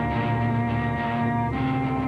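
Background music: steady held notes that move to a new chord about one and a half seconds in, over a low repeating pulse.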